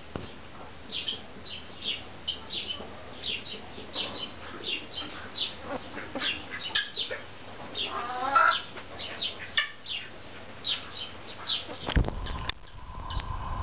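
Brahma chickens calling while they feed: many short, high chirps throughout, with one louder, throaty call about eight seconds in. A low rumble comes in near the end.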